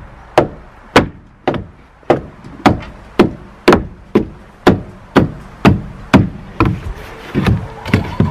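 Axe chopping into frozen chicken droppings on a wooden coop doorsill: a steady run of sharp chops, about two a second.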